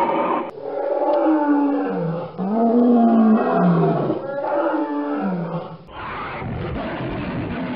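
Dinosaur roar sound effects: three long roars in a row, each sliding in pitch, then a rougher, noisier roar near the end.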